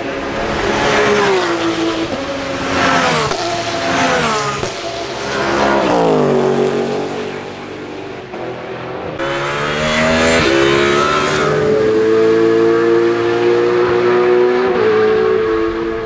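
Several GT race cars passing at speed. Their engine notes drop in steps over the first few seconds as they pass and change gear, then another car's engine climbs and holds a high, steady note from about twelve seconds in, as it runs flat out.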